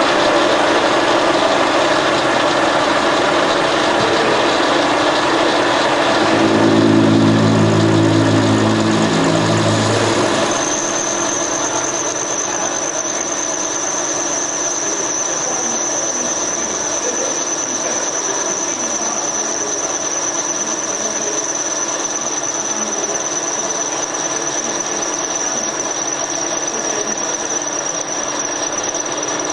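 Metal lathe running under cut as the tool faces the end of a metal bar, a steady mechanical running noise. Briefly a low droning tone joins about six seconds in, and from about ten seconds in a steady high-pitched squeal from the cut persists.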